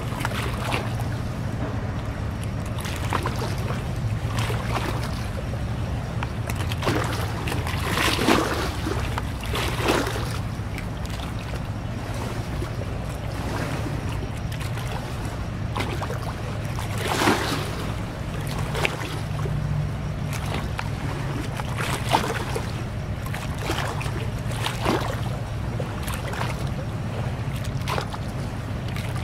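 Low, steady drone of a large ship's engines carried across open water, with short irregular swishes now and then.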